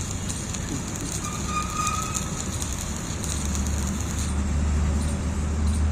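Electric arc welding on a mild steel plate: a steady low electrical hum with a crackling, hissing arc that stops about four seconds in, the hum carrying on louder afterwards.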